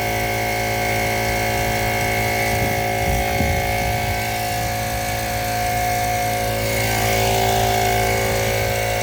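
McGraw 10-gallon electric air compressor running steadily, a constant motor-and-pump hum with many tones, getting a little louder about seven seconds in.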